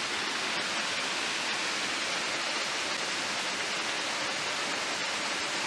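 Steady rushing hiss of water flowing in a shallow creek, even and unbroken.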